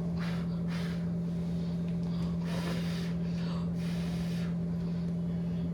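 A person breathing audibly close by, several breaths in a row, over a steady low hum.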